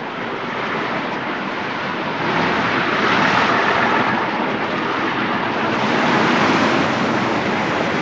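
City street ambience: a steady rushing noise of traffic that grows louder about two and a half seconds in.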